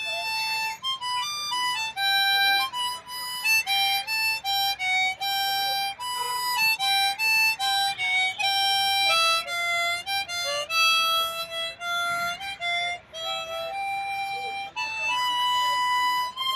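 Harmonica playing a single-line melody, one held note after another with frequent note changes and some notes bent or wavering in pitch.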